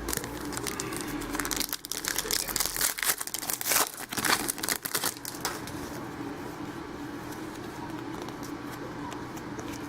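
Crinkling and tearing of a trading-card pack wrapper being opened by hand: a flurry of crackles for about five seconds, then it goes quiet.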